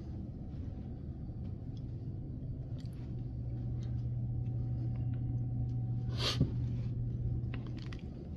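Steady low hum, with a brief rustle about six seconds in.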